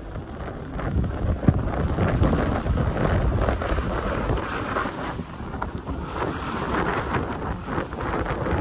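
Wind buffeting the microphone during a fast downhill run, over the steady hiss and scrape of edges sliding on groomed snow, growing louder about a second in.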